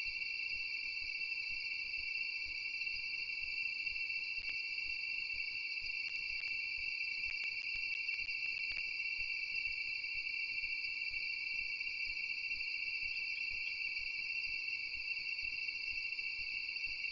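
Steady, high-pitched chorus of night insects, an unbroken shrill drone with a few faint clicks midway.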